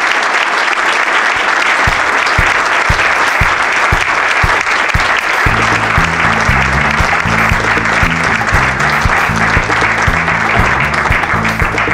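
Audience applauding. A steady drum beat comes in about two seconds in, and a bass line joins about halfway through.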